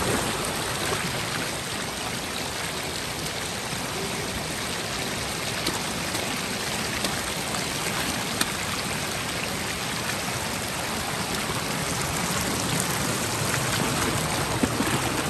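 Steady rush of running water, with a few faint clicks.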